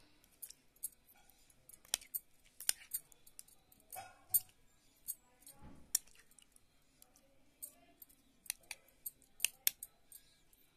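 Steel spoon stirring boiled potatoes through thick green chutney in a glass bowl: scattered light, irregular clinks and scrapes of the spoon against the bowl.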